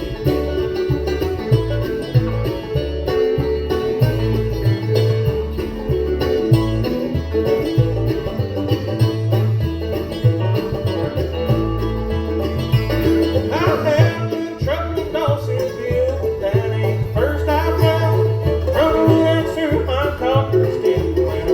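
Live bluegrass band playing at full volume: banjo picking over acoustic guitar and a walking bass line. About halfway through, a higher, bending lead melody comes in on top.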